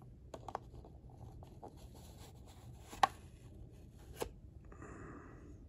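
Light handling noises from a collector toy-car box being opened and held: a few soft clicks and taps, a sharp click about three seconds in, another about a second later, and a brief rustle near the end.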